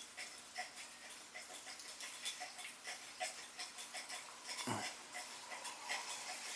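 Shiba Inu puppy lapping water from a bowl, a quick, even train of soft laps about three a second, drinking greedily.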